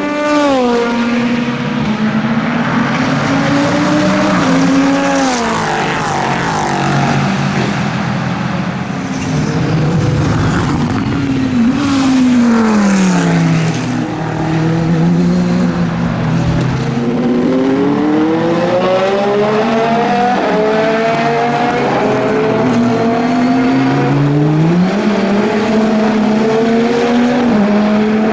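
Chrysler Viper GTS-R race car's V10 engine running hard, its revs dropping steeply on downshifts under braking and climbing again through the gears as it accelerates past and away, with several sharp pitch drops at the upshifts.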